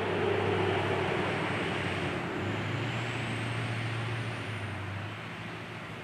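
Engine hum of a passing motor vehicle, loudest near the start and slowly fading, its low drone stepping up in pitch about two and a half seconds in.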